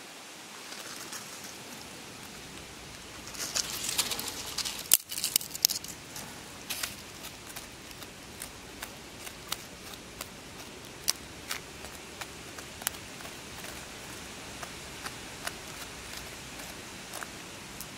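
Hand scraping and scratching through loose, dry soil in a shallow hole, with a dense run of crunchy scrapes about three to six seconds in, then scattered single scratches and ticks.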